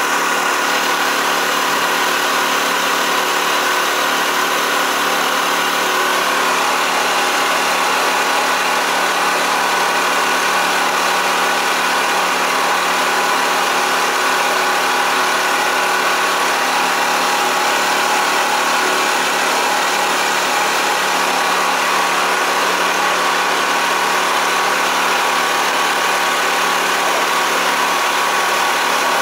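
Motor boat's engine running at a steady speed, an unchanging drone with several steady tones in it.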